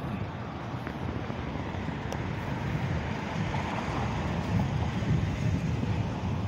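Steady city street traffic noise with wind buffeting the microphone, a little louder about four to five seconds in.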